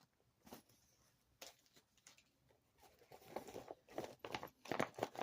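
Rustling, crinkling and light clicks of small items being handled and packed into a handbag, sparse at first and busier from about three seconds in.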